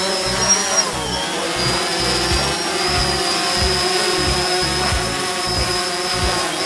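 DJI Phantom 3 quadcopter's motors and propellers whining as it lifts off and climbs. After a brief bend in pitch at the start it holds a steady, many-toned buzz with a high whine on top.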